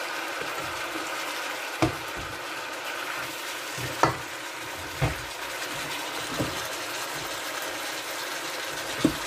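Chicken, potatoes and carrots sizzling in a hot pan while a wooden spatula stirs them, with five sharp knocks of the spatula against the pan, the loudest about four seconds in.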